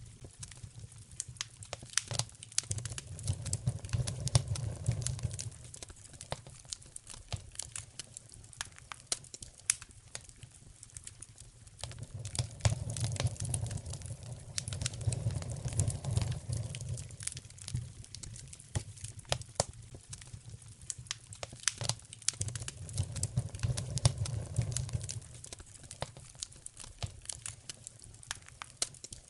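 Wood fire in a fireplace crackling and popping, with irregular sharp snaps of varying loudness. Under the crackle a low rumble swells and fades three times.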